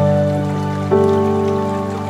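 Calm background music: held melodic notes over a low sustained bed, with a new note struck about a second in.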